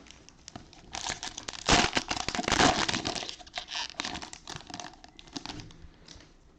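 Cellophane wrappers of trading-card packs being torn open and crinkled by hand, a dense plastic crackle that is loudest about two seconds in and fades out near the end.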